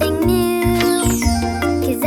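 Upbeat children's cartoon music: melodic instruments over a steady pulsing bass beat.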